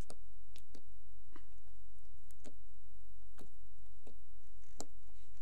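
Fingers poking and squeezing a lump of confetti slime, making small irregular wet clicks and pops, about two a second, over a steady low hum.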